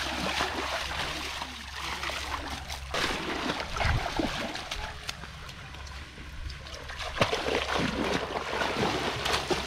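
River water splashing and sloshing, with scattered small knocks and handling noises over a steady low rumble.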